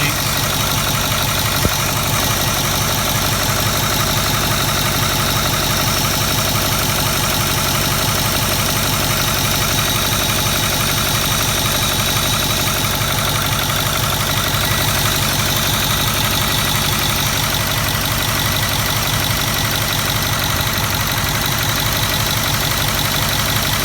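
Ford 6.4L Power Stroke V8 turbodiesel idling steadily with its valve cover off and the rocker arms exposed, with an even, fast diesel clatter. The owner is checking the valve train for a tapping knock.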